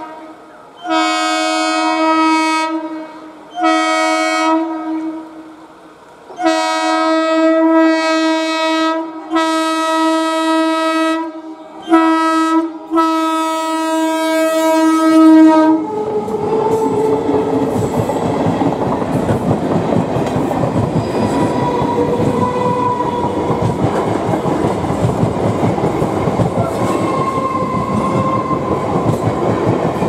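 Eastern Railway EMU local train's horn sounding six blasts of differing length, some short and some long, over about sixteen seconds. Then the train runs past close by, a loud steady rumble of its wheels on the rails.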